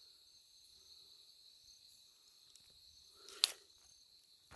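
Steady high chirring of night insects, such as crickets, with a short sharp crackle about three and a half seconds in and another just before the end.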